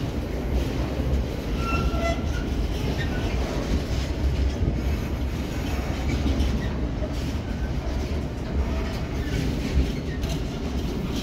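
Container freight train's wagons rolling past close by at steady speed: a continuous low rumble of wheels on rail, with a few brief high squeals about two seconds in.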